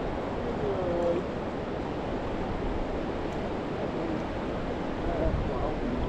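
Steady rush of flowing river water, with a few faint wavering tones about a second in.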